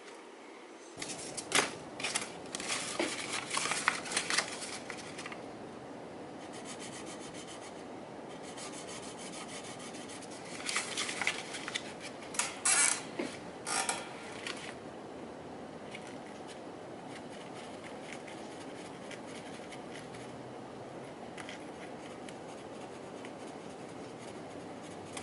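Small metal rod being sanded by hand on wet-and-dry abrasive paper: two spells of quick scratchy rubbing strokes, one about a second in and another around the middle, over a steady faint background hiss.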